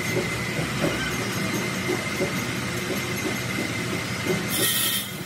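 Crankshaft grinding machine running with a steady whine, with irregular metal clanks as a heavy six-cylinder crankshaft is handled and seated in its chuck. A loud hiss starts near the end.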